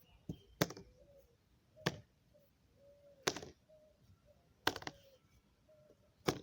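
Pieces of a wooden Tower of Hanoi puzzle being moved one at a time and set down on the pegs: a series of sharp knocks, one every second or so.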